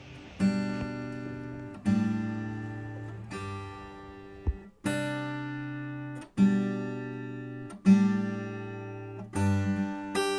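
Background music: an acoustic guitar strumming a slow chord about every one and a half seconds, each chord ringing out and fading, with quicker strums near the end.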